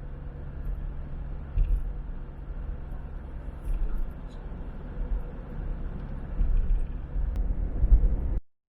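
A vehicle driving, heard from inside: a steady low road-and-engine rumble with a faint hum, which cuts off suddenly near the end.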